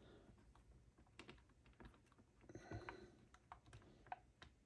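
Near silence, broken by faint, scattered small clicks and taps: a plastic climate control housing and its circuit board being handled and levered into place.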